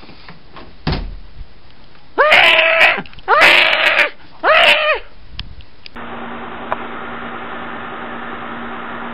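A thump about a second in, then a person screaming three times in loud, high-pitched shrieks, each rising and falling in pitch. After that a steady low hum runs on.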